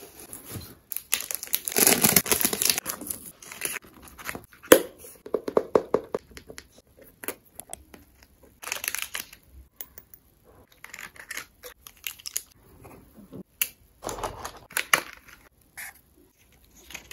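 Packaging being unpacked by hand: paper and mesh wrapping rustling and crinkling in several bursts, with scattered light clicks and taps of small items being picked up and set down.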